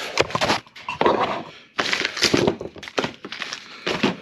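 Irregular crinkling, rustling and knocking as engine parts (piston, connecting rod and rod cap) are handled on a garage bench.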